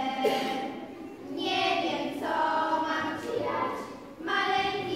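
A group of schoolgirls singing together in long held notes, with short breaks between phrases about a second in and near the end.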